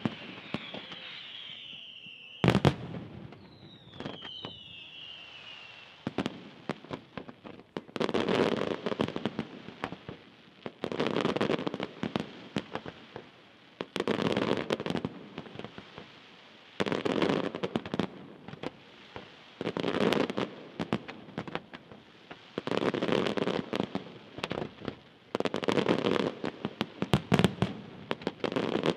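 Senatore Fireworks display: falling whistles near the start and again around four seconds in, a single sharp bang between them, then volleys of rapid crackling bangs about two seconds long, repeating roughly every three seconds.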